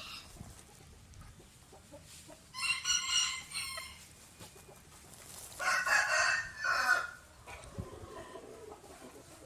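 Rooster crowing twice, each crow a little over a second long, about three seconds apart.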